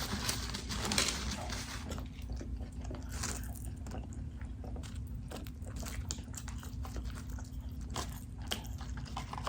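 Close-miked chewing and biting of fast food, with many short crisp mouth clicks over a steady low hum.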